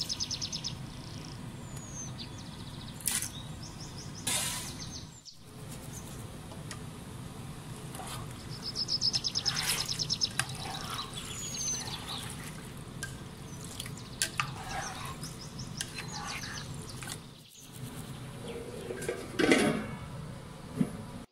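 Small birds chirping and trilling in the background over a steady low hum, with occasional knocks from the pasta being stirred in the pot. Near the end comes a louder clatter as the glass lid goes on the pot.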